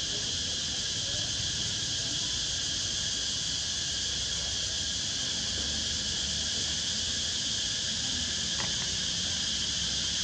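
Steady insect chorus: a constant high-pitched buzzing drone that holds level throughout, with no calls from the monkeys.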